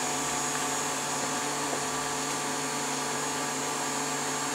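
Vacuum pump for resin infusion running steadily with a hum of several held tones, warming up before it is used to pull vacuum.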